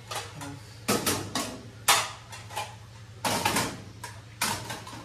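Dishes clattering as they are handled and set down at a kitchen sink: four main sharp knocks roughly a second apart, over a steady low hum.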